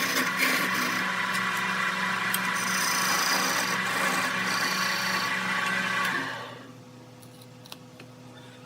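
Wood lathe running with a steady motor hum while a tool cuts the spinning wood with a loud, rough hiss. About six seconds in the cutting stops and the sound drops to the quieter hum of the lathe.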